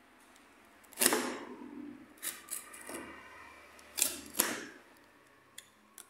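Box cutter cutting through packing tape on a cardboard box, in a few short strokes, the loudest about a second in.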